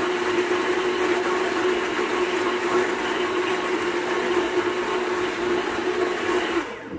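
Blendtec blender motor running steadily at speed, puréeing pear, kiwi, onion and garlic in apple juice, with a constant hum over the whir; it winds down and stops near the end.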